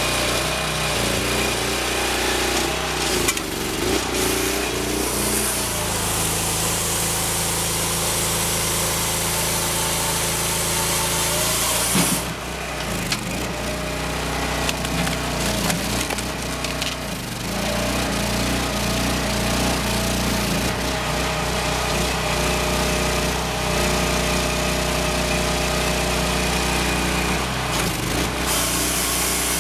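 Firewood processor at work: its engine runs steadily under the sound of its saw cutting a log and its hydraulic splitter forcing rounds through the wedge, with wood cracking and splintering and a sharp crack about twelve seconds in.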